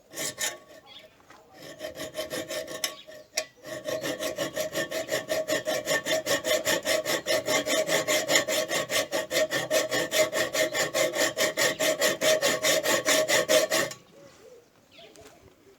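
Hacksaw cutting through a steel tube from an old shock absorber. A few uneven strokes give way to a steady fast back-and-forth rhythm with a ringing note from the tube underneath, which stops about two seconds before the end.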